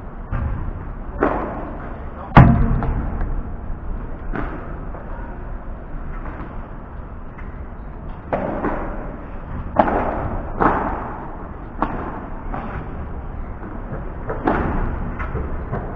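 Padel ball strikes in a rally: a series of sharp knocks from racket hits and bounces, irregularly spaced about a second apart, each ringing briefly. The loudest hit comes about two and a half seconds in.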